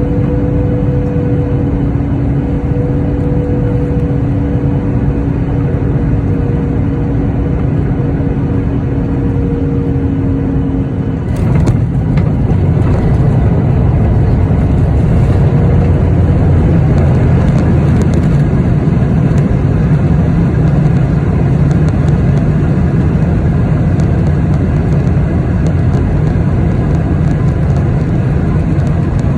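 Cabin noise of a Boeing 737-8 landing: a steady engine hum with two droning tones, which cut out about eleven seconds in, followed by a few thumps and a louder rushing noise that builds and holds, typical of touchdown and the rollout.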